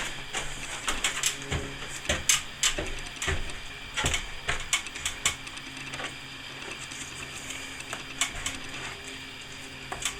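Plastering tools being worked: irregular clicks, taps and scrapes of a trowel against plaster and a hawk or bucket as plaster is picked up and put on a ceiling hole, over a faint steady hum.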